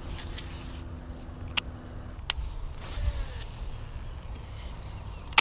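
Low wind rumble on the camera's microphone, with three sharp clicks as the angler handles a baitcasting rod and reel while working a jig, the last and loudest near the end.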